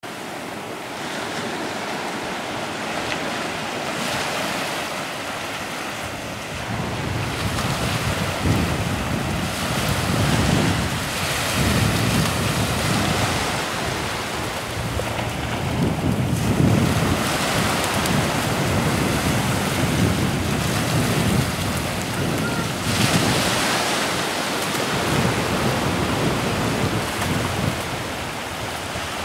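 Shallow surf washing in and out at the shoreline, small waves breaking and running up the sand, with gusts of wind buffeting the microphone in repeated low rumbling surges.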